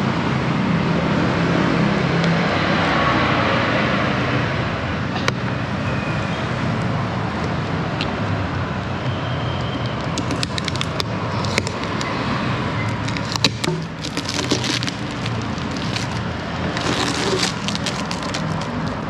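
Plastic packing tape being peeled and torn off a perforated plastic box, crackling in quick clusters from about ten seconds in, over a steady rumble of vehicle traffic.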